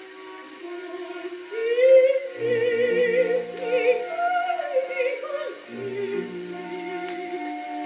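A 1932 Polydor 78 rpm shellac record playing on an HMV 163 acoustic gramophone: a soprano sings an operatic aria with a wide vibrato over orchestral accompaniment. The sound is narrow and horn-like, with no deep bass and no high treble.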